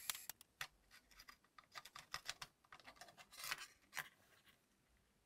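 Faint small clicks and scratches of fingers handling a flat ribbon cable and working it into its plastic connector on a laptop's keyboard deck, with a denser run of clicks about three and a half seconds in.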